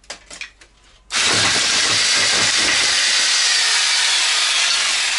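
Electric jigsaw switched on about a second in and cutting through a wooden board, running steadily. A few light clicks of handled wood come before it starts.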